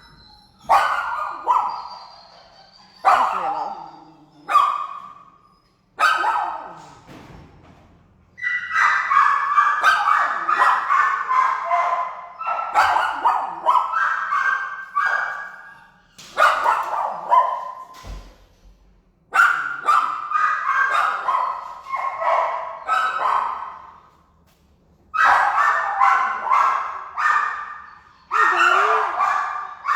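Shelter dogs barking in kennels: several voices overlap in loud bursts with short lulls between them. Each bark echoes off the hard kennel walls.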